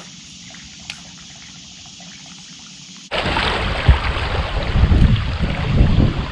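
Wind buffeting the microphone on open water, a loud gusty rumble that starts abruptly about three seconds in. Before it there is only a faint steady hum and a single click.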